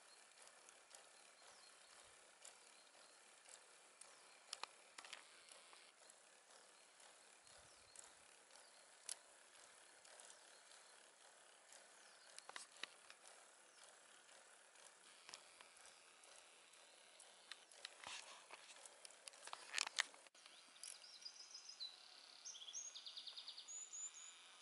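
Near silence: faint outdoor hiss with scattered soft clicks, and a few short, high chirping notes near the end.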